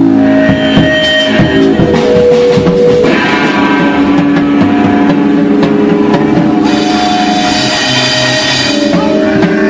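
Rock music: a drum kit and electric guitar playing, loud and continuous.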